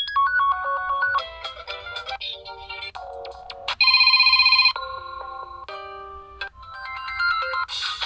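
Landvo Rino4 Pro smartphone's speaker playing a string of its built-in Android ringtones one after another, each electronic melody cut off after about a second as the next one is tapped. A little before halfway, one is a loud, rapid electronic beeping.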